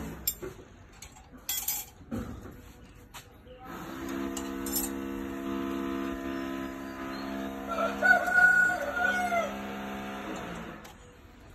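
A rooster crows once, loudly, about eight seconds in, over a steady hum. In the first two seconds there are a few sharp clicks from the wire being twisted on the steel rebar cage.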